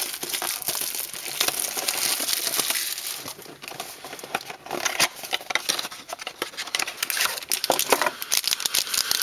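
Crinkling of a trading-card pack's wrapper being handled and torn open, a steady crackle of many small clicks that eases off in the middle and picks up again.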